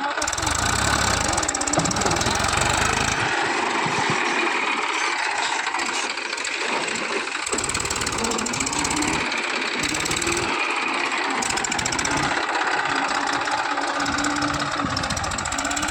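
Tractor diesel engine running hard, its low rumble swelling and dropping away several times, as the tractor works to pull out of deep mud.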